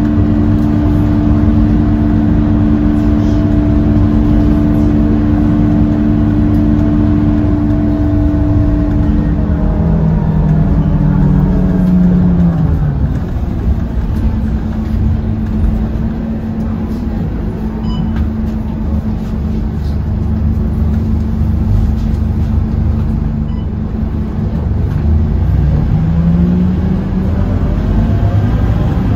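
Scania K230UB city bus's diesel engine and drivetrain heard on the move. It runs steadily at first, its pitch falls about ten seconds in as the bus slows, then it holds steady again and rises near the end as the bus picks up speed.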